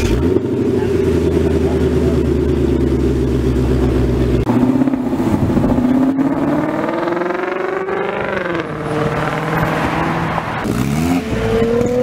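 Ford Mustang's exhaust idling steadily, then the car accelerating hard away, the engine note rising, dropping once at a gear change, and rising again. In the last second or so a supercharged Volkswagen Beetle's engine begins, its pitch rising.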